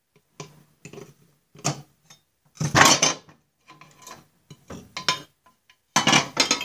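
Old bearings being pressed out of a Snapper rear-engine rider's steel chain case with a hand-lever drill press: a string of short metal clanks and knocks as the quill comes down on the bearing, the loudest about three seconds in. Near the end the case and the pressed-out bearing clatter as they are lifted off the support.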